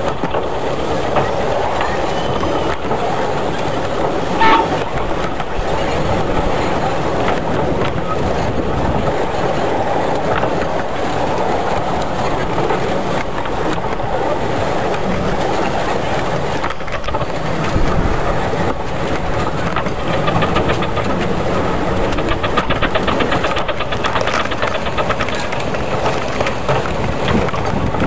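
Miniature steam railway train running, its wheels clattering steadily along the track. About four and a half seconds in there is one short whistle toot.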